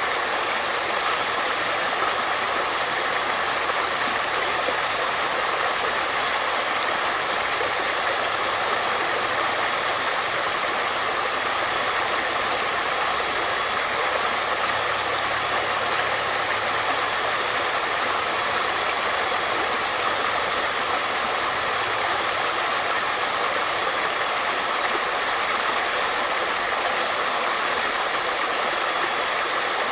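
Flowing water running in a steady, even rush with no change in level.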